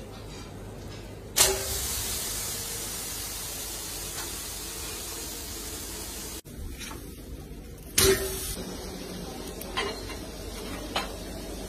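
Turbot sizzling on a hot charcoal grill: a sharp hiss flares up as the fish meets the grates about a second and a half in, then settles into a steady, slowly fading sizzle. After a brief cut, a second loud hiss flares up about eight seconds in, as the fish is laid on the grill again, followed by a few small crackles.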